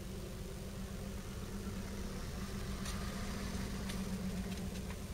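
A vehicle engine idling steadily, a low even hum, with a few sharp clicks in the last two seconds.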